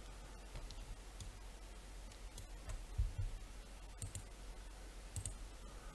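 A few faint, scattered computer mouse clicks over quiet room tone, with a soft low thump about three seconds in.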